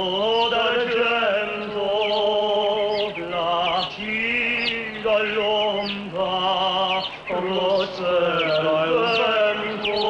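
Soundtrack music: male voices singing a chant-like song in long, wavering held notes with short breaks between phrases.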